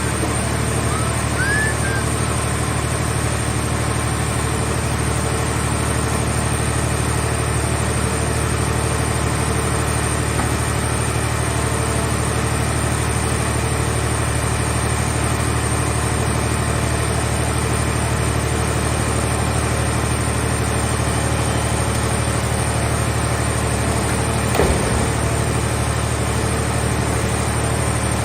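Engine of a mobile hydraulic scrap-car baler running steadily, with a thin high whine over it. A single short knock comes near the end.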